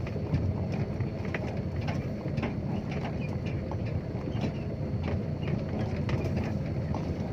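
Dump truck driving on a rough dirt track: a steady low engine rumble with frequent short rattles and knocks throughout.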